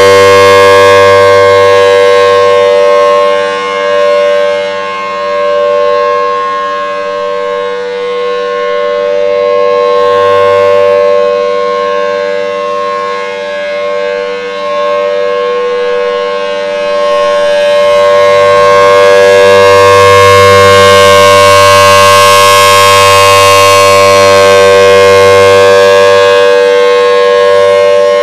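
Federal Signal Thunderbolt 1000T outdoor warning siren sounding a steady full-alert tone, very loud. It holds one pitch throughout, swelling and fading in loudness every several seconds as the rotating horn sweeps toward and away.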